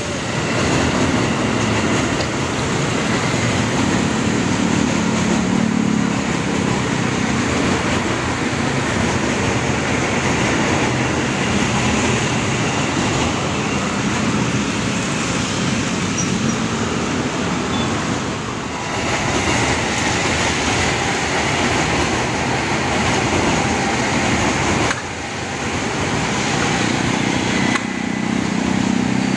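KRL Commuter Line JR 205 series electric trains running over a railway viaduct: a steady loud noise of wheels on rail and running gear, with a low hum, mixed with road traffic below. The sound changes abruptly a few times, dipping about two-thirds of the way in and rising again near the end.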